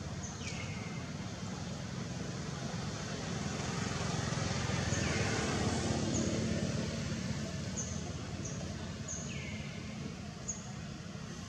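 Outdoor ambience with a motor vehicle going by, its rumble swelling for a few seconds in the middle and then fading. Short high bird chirps come through now and then, and twice a high call falls steeply in pitch.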